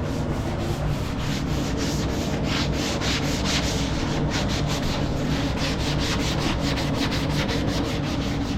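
Drywall joint compound being hand-sanded in quick back-and-forth scraping strokes, about four or five a second, over a steady low hum.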